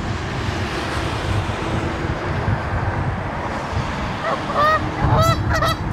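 Geese honking in a quick run of calls about four seconds in, over a steady rush of wind on the microphone.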